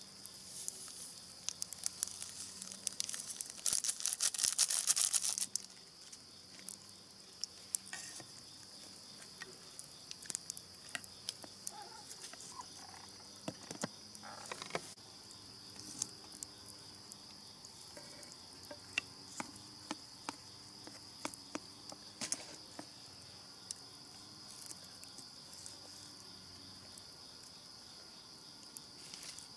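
Steady high-pitched chirring of insects, with scattered sharp clicks and ticks. A loud burst of rustling about three seconds in lasts about two seconds.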